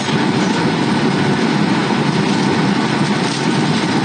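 Steady cabin noise inside a jet airliner in flight, with the engines and rushing air heard through the fuselage as an even, low rumble.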